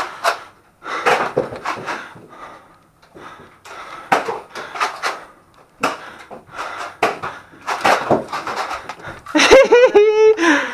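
Scattered sharp knocks and clatter in a small room, coming in clusters with short pauses, and a person's wavering shout or cry near the end.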